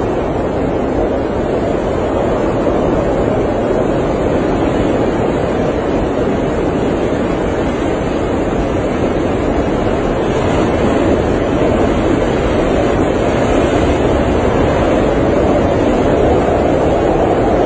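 Blizzard wind blowing as a steady, dense rush with no distinct gusts or other events, weighted toward the low and middle range.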